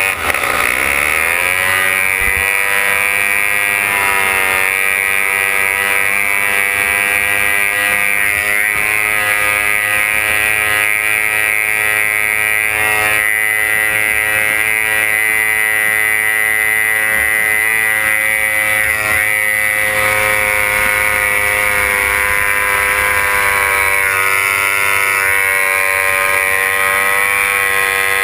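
Racing outboard engine of a C-class runabout race boat running at high revs, heard from the cockpit along with wind and water rush. The engine note dips sharply right at the start, climbs back up over the next few seconds, then holds steady.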